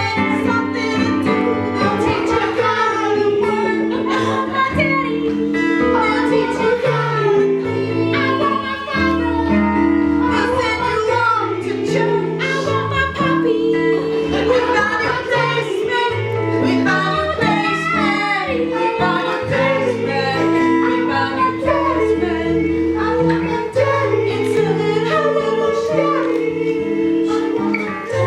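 Music: a song with a high singing voice over sustained, held chords.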